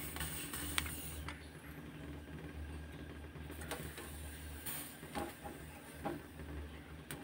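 Gas stove burner running with a faint low rumble, with a few light clicks and taps as tomatoes are set on the perforated metal roasting grate over the flame.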